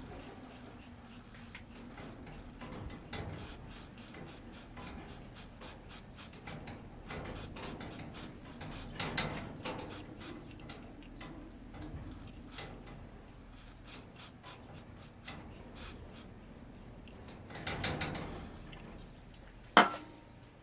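Hand-tool work on metal: runs of quick clicks lasting several seconds, a brief scrape, then one sharp knock near the end.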